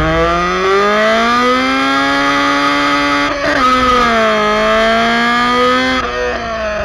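Hatchback's engine and exhaust pulling hard, the note rising at first and then holding. It breaks and dips once about three and a half seconds in, as at a gear change or lift-off, then steadies again and falls away near the end.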